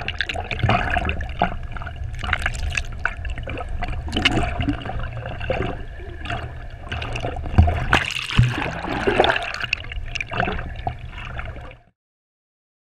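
Water sloshing and bubbling around an underwater camera, with scattered clicks and knocks over a steady low hum. The sound cuts off suddenly about a second before the end.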